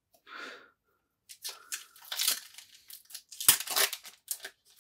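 Foil trading-card pack wrapper being torn open and crinkled by hand: a run of irregular crackling rustles, loudest about three and a half seconds in.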